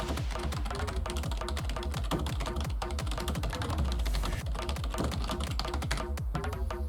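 Electronic dance music with a heavy, pulsing bass beat and rapid clicking percussion.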